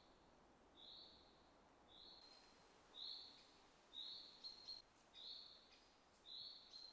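A bird calling faintly: one short high note repeated about once a second, seven times, over a faint steady hiss.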